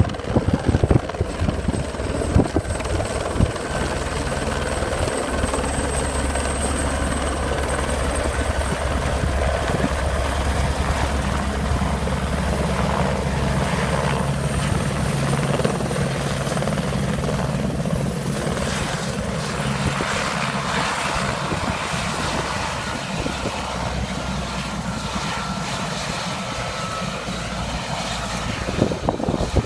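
Helicopter running close by, a steady drone of engine and rotor that holds level throughout, with some uneven thumps in the first few seconds.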